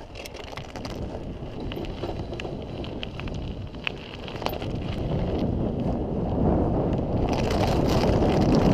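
Mountain bike rolling down a gravel track: tyres crunching over the stones with scattered sharp clicks and rattles, under wind buffeting the microphone that grows louder as the bike gathers speed.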